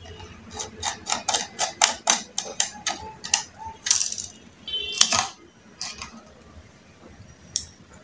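Rapid small clicks and taps of a screwdriver and metal parts as the screws of the Gigabyte B760M Aorus Elite AX motherboard's M.2 heatsink cover are undone and the cover lifted off. The clicking is dense for about four seconds, then thins to a few single clicks.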